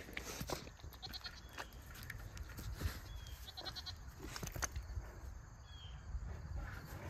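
Goats bleating over a low outdoor rumble, with scattered short clicks.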